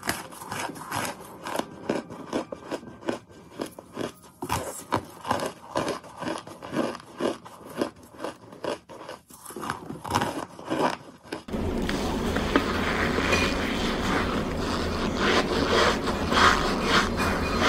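Fingers crushing and scraping a white chalky chunk against the rim of a container, giving many sharp crunchy crackles. About two-thirds through it switches abruptly to a denser, louder crunching over a low hum.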